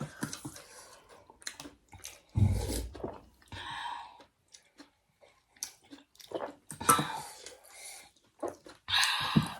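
Close mouth sounds of a person eating thukpa noodle soup: irregular wet chewing clicks, with a few longer, louder eating noises, the loudest about two and a half seconds in and another near the end.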